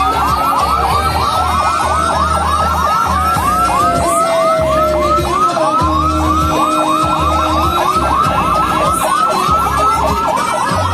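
An emergency siren in a fast yelp, its pitch sweeping up and down about four or five times a second. Over the first half a second tone glides slowly downward, and a low rumble runs underneath.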